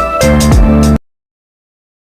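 Background music with a steady beat that cuts off abruptly about halfway through, leaving dead silence.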